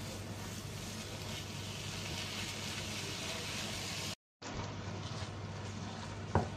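Minced beef sizzling as it browns in a frying pan with no oil, stirred with a wooden spatula: a steady hiss over a low hum. The sound cuts out for a moment about four seconds in, then the sizzling carries on.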